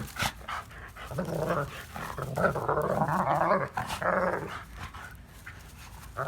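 A dog growling in several stretches, low and rough, over the first few seconds before it quiets down.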